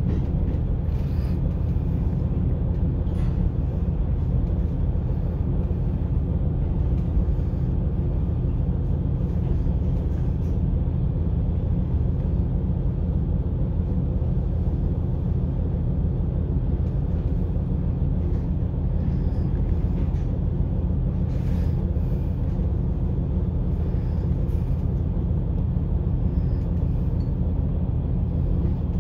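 Steady low rumble inside the cabin of a moving ET122-1000 diesel railcar, the engine's drone under the running noise of the wheels on the rails, with a few faint clicks along the way.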